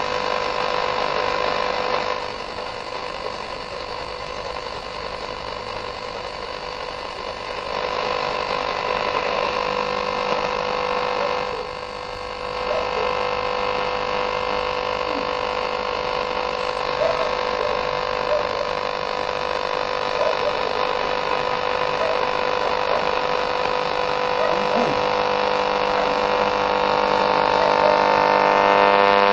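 AM radio receiver tuned across the medium-wave band between stations, giving static hiss with steady whistles and hum from weak, overlapping stations. The noise changes character at a few points as the tuning steps to new frequencies.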